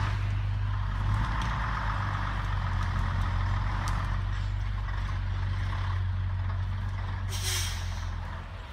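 TGB 30 off-road truck's engine running steadily as the truck drives slowly through forest terrain. A short hiss comes about seven and a half seconds in.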